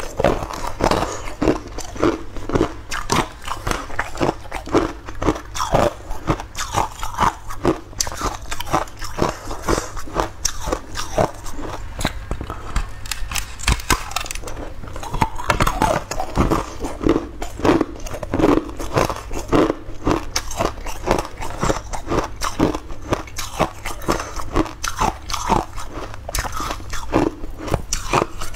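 A person biting and chewing blue-coloured ice, a continuous run of crunches and cracks.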